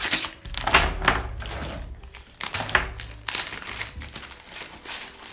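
Plastic packaging crinkling in several irregular bursts as rod antennas are unwrapped and slid out of their plastic sleeves.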